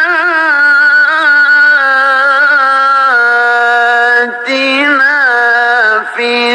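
A solo man's voice reciting the Quran in the melodic tilawah style, holding long notes with wavering ornaments and pausing briefly a little past four seconds in and again near the end.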